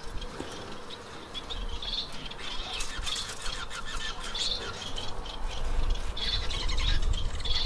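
Caged Bengalese finches giving short, high calls every second or so, with a few faint clicks.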